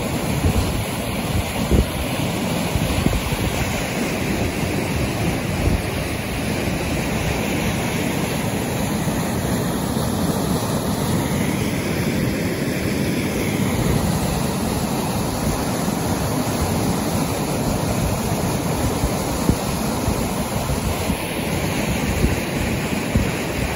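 Fast-flowing river pouring over a rocky rapid: a steady, loud rush of white water.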